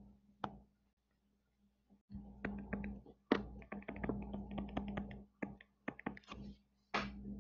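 Stylus tapping and scratching on a tablet while writing by hand: a few isolated taps, then a quick irregular run of light clicks and taps over a steady low hum.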